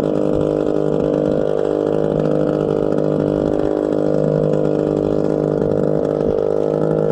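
A small engine on the fishing boat running steadily at a constant speed, with an even, unchanging hum.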